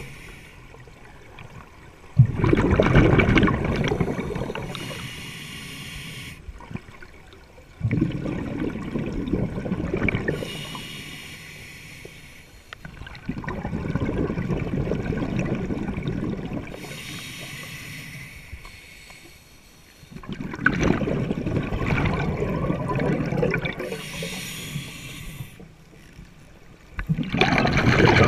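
A scuba diver breathing underwater through a regulator, heard five times at a pace of roughly one breath every six seconds. Each breath is a brief high hiss on the inhale, followed by a sudden burst of exhaust bubbles on the exhale that fades over a few seconds.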